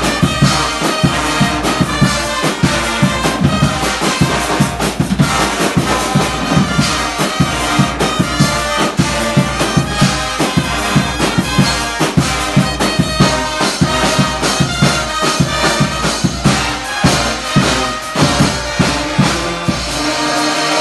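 A Guggenmusik brass band plays loudly, with sousaphones, trumpets and trombones over a driving drum beat. Near the end the drumming stops and the band holds a final chord.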